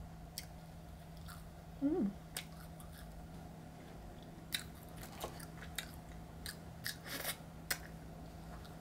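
Quiet eating sounds: bites and chewing of a crunchy dessert, with scattered light clicks and rustles from cutlery and a plastic wrapper. A brief hummed voice sound comes about two seconds in, over a steady low room hum.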